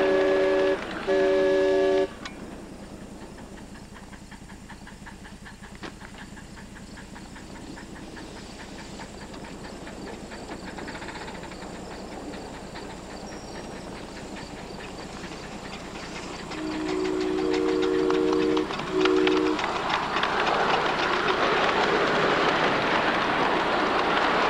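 Miniature steam train's whistle sounding a chord of several notes, blown twice in the first two seconds, then the train running quietly on the track. About 17 seconds in comes a long whistle blast and a short one, and near the end the cars pass close with loud running noise and wheel clatter.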